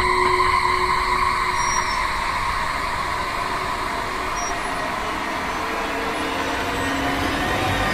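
Horror sound effect: a steady, noisy rumbling drone, with a held tone that fades out over the first couple of seconds.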